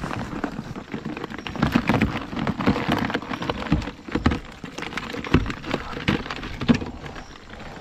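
Water dripping and spattering from a wet mesh crab net as it is shaken out over a clear plastic tote, with live blue crabs knocking and scrabbling against the plastic in many small, irregular clicks.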